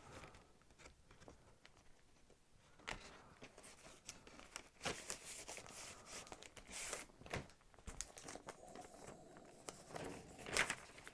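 Faint crinkling and rustling of plastic shrink wrap and a record jacket being handled, in scattered short bursts that start about three seconds in.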